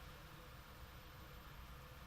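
Near silence: a faint, steady hiss with no thunder or other distinct event.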